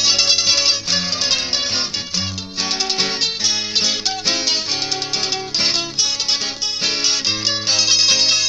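Mandolin and guitar duet: the mandolin plays a melody in fast picked notes over the guitar's low bass notes and chords.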